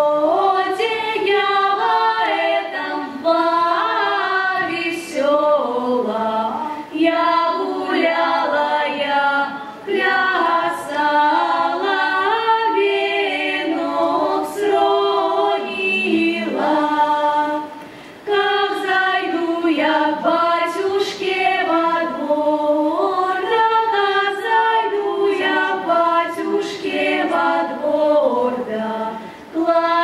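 Girls' folk ensemble singing a Russian folk song a cappella, several voices together without instruments, with a short break for breath about two-thirds of the way through.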